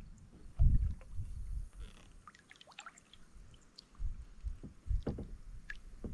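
Kayak paddle strokes in calm water, with drips and small splashes off the paddle blade and a few low thumps, the loudest just under a second in and again about five seconds in.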